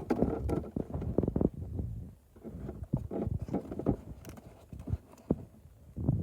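Irregular soft clicks, taps and squishes from hands working slime and its materials close to the microphone, with a brief pause about two seconds in.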